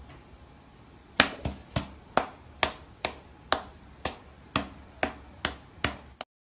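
A quick run of about a dozen sharp taps on a glass pane, two to three a second, as a cat pats with its paws at a hand pressed against the other side of the glass. The taps start about a second in and cut off suddenly near the end.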